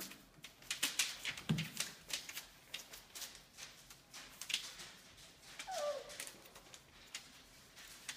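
Labradoodle puppies' paws and claws scrabbling over crinkling newspaper, a patter of sharp rustles and clicks. A puppy gives one short falling whimper about six seconds in.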